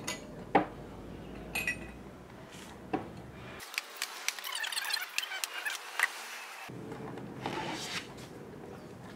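Drinking glasses clinking and knocking against one another and on wood as they are lifted out of a plastic basin and set down in a wooden cart tray. Separate sharp clinks at first, then a quick run of clinks in the middle.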